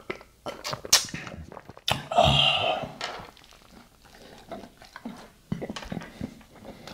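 A man drinking beer from a glass mug, followed about two seconds in by a knock and a loud, breathy "ahh" of satisfaction lasting about a second. Near the end, soft irregular mouth clicks of biting into and chewing a taco.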